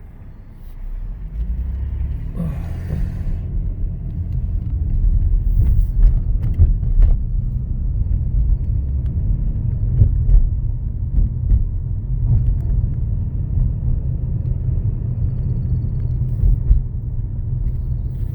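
Low rumble of a 2013 Mercedes E350 4Matic on the move. It builds over the first few seconds, then holds steady, with a few faint clicks. This is the noise when moving that remained, though reduced, after the idler pulleys, serpentine belt and tensioner were replaced.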